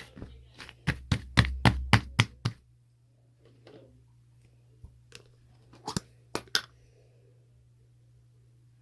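A quick run of about seven sharp knocks, then four more spaced out a few seconds later.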